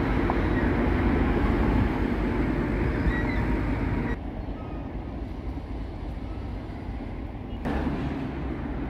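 Heavy diesel demolition machinery (excavators and a grab loader) running as a steady low rumble. The sound drops suddenly about four seconds in and comes back near the end.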